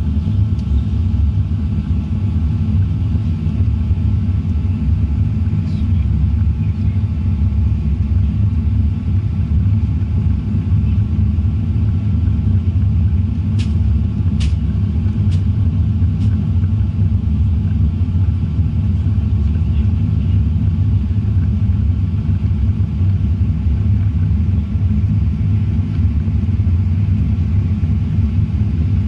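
Steady low rumble of an airliner cabin, with a few faint sharp clicks about halfway through.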